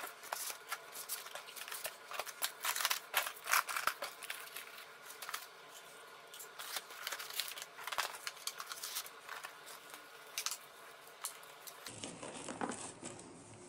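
Handling noise as plastic drone parts and batteries are set into the foam cutouts of a hard-shell case: irregular light clicks and knocks with rustling.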